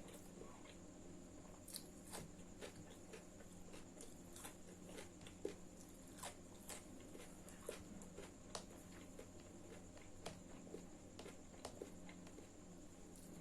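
Faint eating sounds: scattered soft clicks and smacks of chewing food, a few a second, with one sharper click about five and a half seconds in. A steady low hum and a faint high whine sit underneath.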